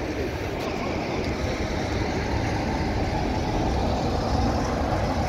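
A passenger train rolling past as a steady rumble of coach wheels on the track. The trailing Class 47 diesel locomotive, with its Sulzer 12LDA28 engine running, draws near in the second half and the rumble grows a little louder.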